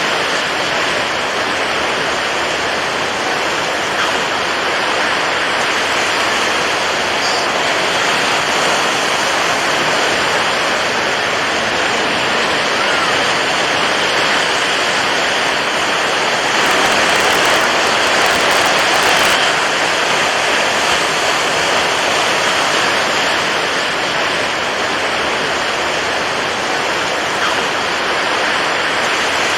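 Continuous rushing water, an even wash of noise that swells a little louder for a few seconds just past the middle.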